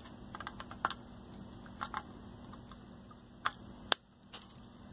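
Flush cutters snipping off the excess component leads on the solder side of a freshly soldered circuit board: about five sharp clicks at irregular spacing, the loudest near the end.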